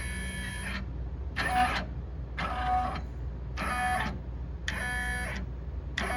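Brother 1050X machine running with a squeak that repeats about once a second. Each squeak is a short squeal of several tones over a low steady hum. The owner wonders whether a bar in the mechanism needs lubricating.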